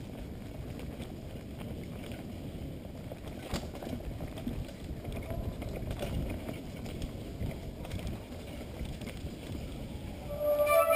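Steady wind rush on the microphone together with the rolling and rattling of a mountain bike on a dirt forest trail, with occasional small knocks. Right at the end comes a brief, louder pitched sound.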